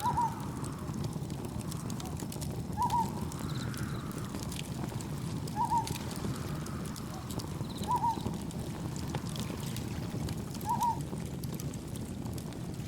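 Campfire crackling with small faint pops over a steady low rush of wind and gentle waves. A short chirping call near 1 kHz repeats five times, about every three seconds, with faint higher insect chirps in between.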